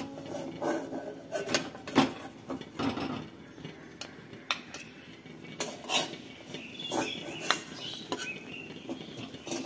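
Metal spatula scraping and clinking against a metal kadai and a steel plate in irregular knocks, as fried eggplant slices are lifted out of the pan. The sharpest clink comes about two seconds in.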